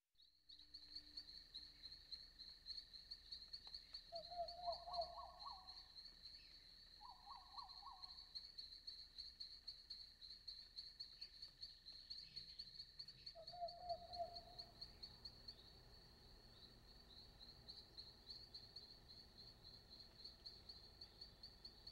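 Faint, steady high-pitched trill of insects, with three short lower warbling calls about four, seven and fourteen seconds in.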